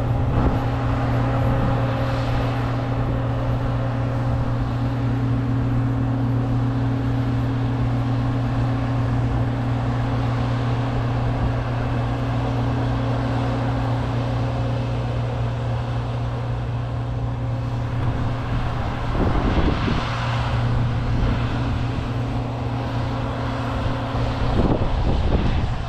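Combine harvester running steadily at work, a constant engine drone with a deep, even hum. Two brief noisy swells come in near the end.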